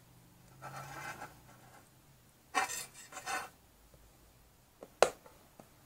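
Clear plastic tub enclosure handled and its lid worked open: two spells of plastic rubbing and scraping, the second louder, then one sharp plastic click about five seconds in.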